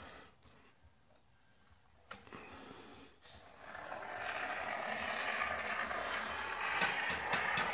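Can of minimum-expansion foam sealant hissing as foam is sprayed into a gap, a short spurt about two seconds in, then a longer steady spray from about four seconds in.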